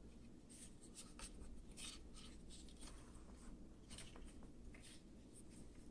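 Faint handling sounds of a rifle buttstock being turned over in the hands: scattered light rubs and small ticks.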